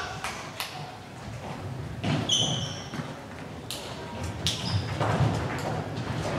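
Echoing sports-hall background: scattered thuds and knocks, with a brief high squeak about two seconds in.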